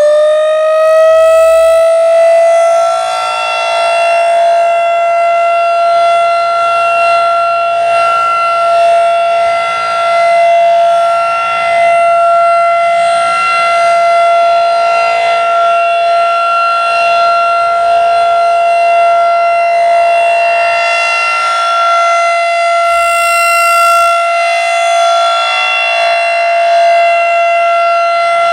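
Federal Signal 2001-SRN outdoor warning siren finishing its wind-up, its pitch rising and levelling off about three seconds in, then holding one steady, loud tone: the steady Alert signal of its monthly test.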